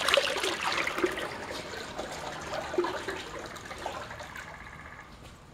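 Water churning and splashing in a galvanized metal trash can, stirred by the propeller of a MotorGuide 36 lb thrust 12-volt trolling motor running at its lowest forward speed. The sound fades gradually.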